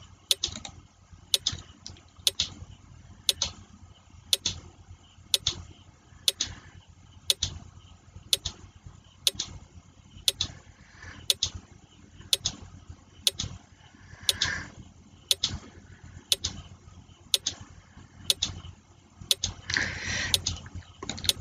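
Quiz countdown timer sound effect ticking steadily, about one tick a second, while the 20-second answer time runs down.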